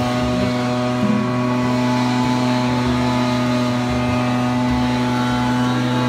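A motor running steadily, making a constant hum that holds one pitch.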